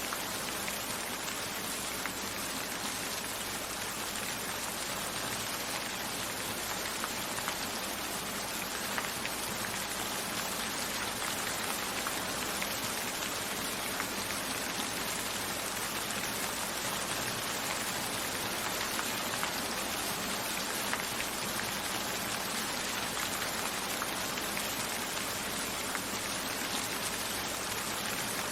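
Steady rain, an even hiss with small drop ticks throughout, with raindrops striking a window.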